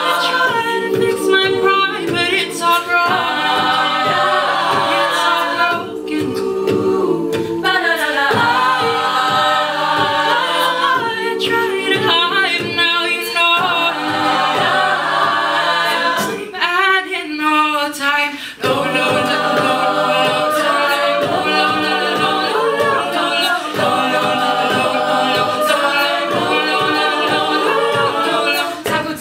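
All-female a cappella group singing: a lead voice over layered backing harmonies, with beatboxed vocal percussion keeping a steady beat. About two-thirds of the way through, the backing and beat briefly drop away before coming back in.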